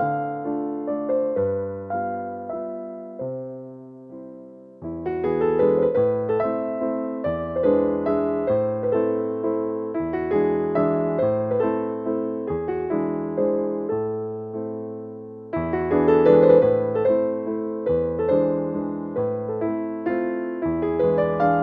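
Background music played on an electric piano, gentle notes that fade away, with a brief dip near 5 seconds before the next phrase starts.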